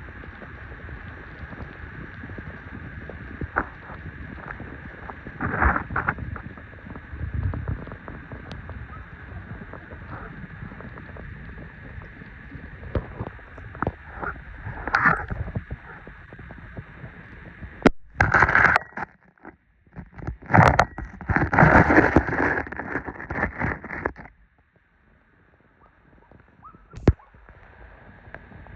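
Beach waves sloshing and gurgling at the water's edge, with irregular louder surges and splashes, the biggest cluster a little past halfway; the sound drops almost to nothing for about two seconds near the end.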